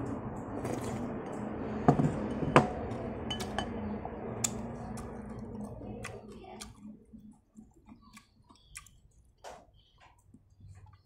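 A person slurping noodles and broth from a ceramic bowl held to the mouth, with chopsticks clicking sharply against the bowl twice about two seconds in. For the last few seconds there are only faint, scattered mouth sounds of chewing.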